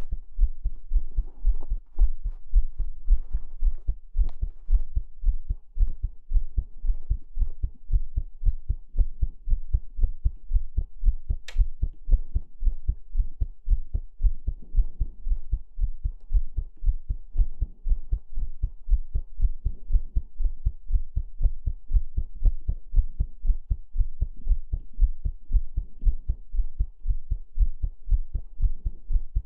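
A heartbeat beating in a steady, even rhythm of low thumps.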